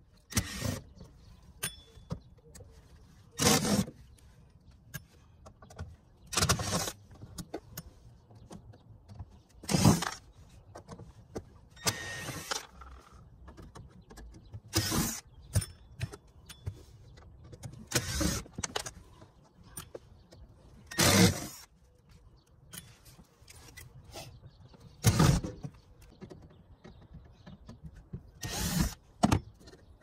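Ten or so short bursts of a cordless drill, a few seconds apart, working at the screws holding an RV air conditioner's shroud.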